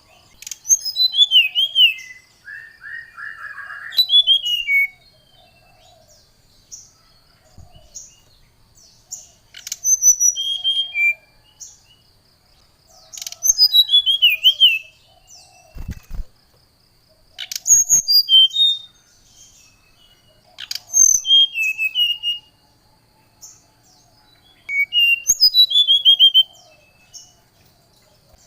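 Brown-chested jungle flycatcher singing in repeated bursts: short phrases of high whistles that fall in pitch, one phrase every few seconds. A faint steady high whine runs behind the song.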